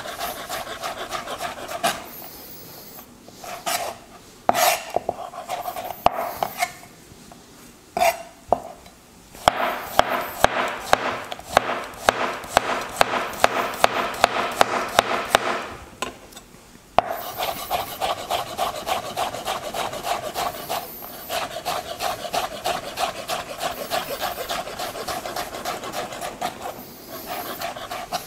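Chef's knife cutting zucchini into thin julienne strips and slices on a plastic cutting board: rapid strokes tapping the board, in runs broken by short pauses. The longest runs come about ten seconds in and again after a brief stop near seventeen seconds.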